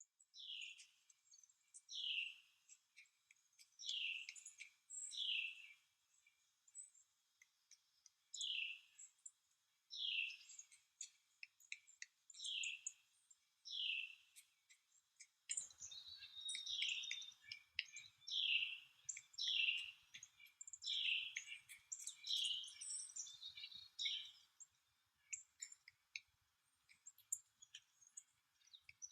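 Bird calling: a series of single downward-slurred call notes, repeated about every one to two seconds, with short chip-like ticks between them. A faint low rumble comes in about halfway.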